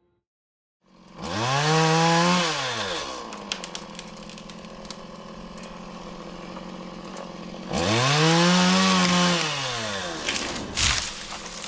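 Chainsaw engine revved up to full speed for about a second, then dropping back to a steady idle. About eight seconds in it is revved hard again and falls back once more, with a few sharp clicks near the end.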